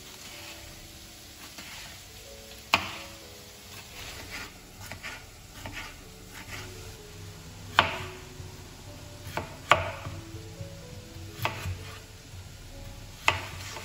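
Kitchen knife chopping red bell pepper on a plastic cutting board: sharp knocks of the blade meeting the board at uneven intervals, a second or two apart, with lighter taps between. Near the end the knife slices through peeled potatoes.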